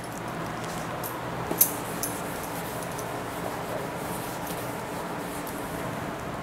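Whiteboard duster rubbing marker off a whiteboard, faint over a steady room hiss, with one sharp knock about a second and a half in.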